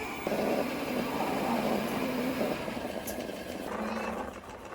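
Everybot 3iPOP robot vacuum running back to its charging dock, a steady motor whir that starts about a quarter second in and fades near the end.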